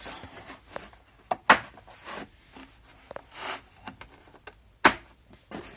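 Cardboard box being opened by hand: its side tabs pulled out and the flaps and packaging handled, giving scattered rustling and sharp snaps, two loud ones about a second and a half in and near the end.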